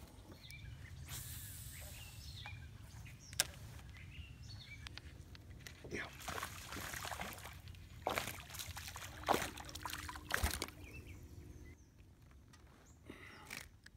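Low wind rumble on the microphone, with splashing on the lake surface about six seconds in and a few sharp knocks.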